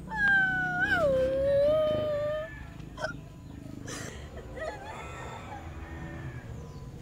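A young girl crying: one long, high wail lasting about two and a half seconds that falls in pitch, then fainter sounds with a couple of sharp clicks.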